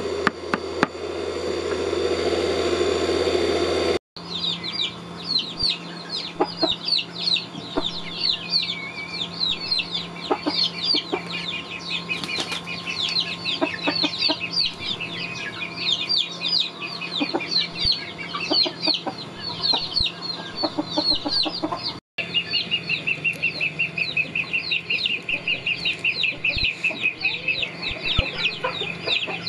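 A knife chopping leafy greens on a board for about the first second, then a steady rushing noise. After that, a brood of young poultry peeping nonstop: many short, high, falling peeps, denser and more even near the end.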